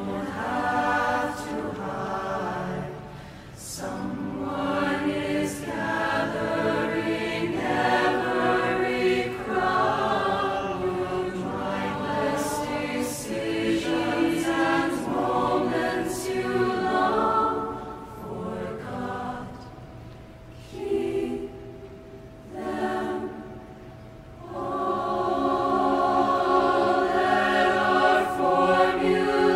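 Choral music: a choir singing slow, held chords. It thins and drops in level for a few seconds past the middle, then swells back fuller and louder near the end.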